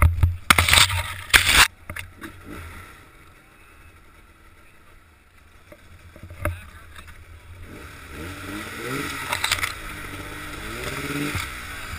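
Pine branches scraping and crackling against a helmet-mounted camera as a snowmobile crashes into a tree, loud for the first two seconds and then quieter, with one sharp knock near the middle. Towards the end a muffled voice wavers up and down.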